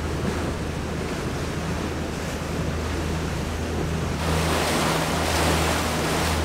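A boat's engine running underway with a steady low drone, under the rush of water past the hull and wind on the microphone. The water and wind rush grows louder about four seconds in.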